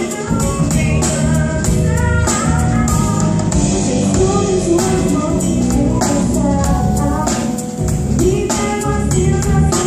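A woman singing with a live band: her sustained sung lines over electric bass and a steady percussion beat.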